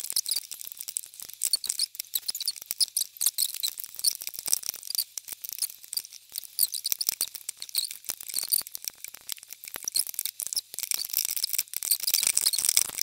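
Rubber loom bands squeaking and stretching as a looming hook pulls them up over the plastic pegs of a rubber-band loom, with a quick, irregular run of small clicks and high squeaks.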